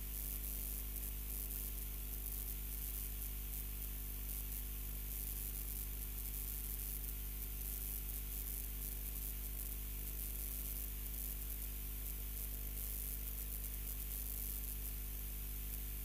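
Steady electrical hiss with a low hum and several faint steady tones beneath it, unchanging throughout: background noise of the broadcast's audio line.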